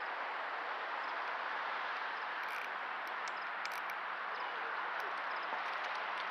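Steady outdoor background hiss with a few faint, short high clicks scattered through it.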